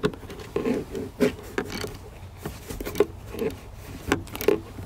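Irregular clicks, knocks and rubbing as a hand and tool work a small latch loose behind a car's rear seat.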